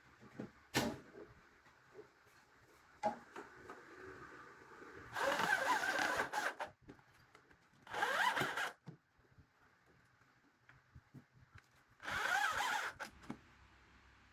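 Woodworking tool sounds: a couple of sharp knocks, then three short bursts of a power tool working wood, each about a second long with a wavering scrape in it.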